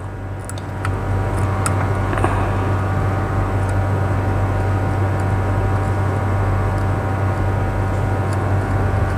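Hot-air rework station blowing steadily, a whirring rush of air with a low hum. It gets louder about a second in and then holds level as the hot air heats the pads.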